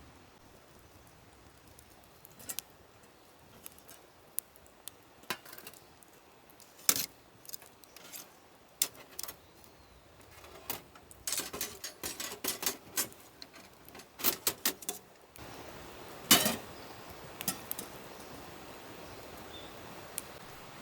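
Scattered light clicks and clinks of small hard objects being handled, busiest around the middle, with one louder knock a little after that.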